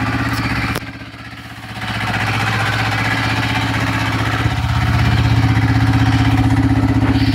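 Yamaha snowmobile engine running steadily at low revs. It dips briefly about a second in, then picks up and holds steady.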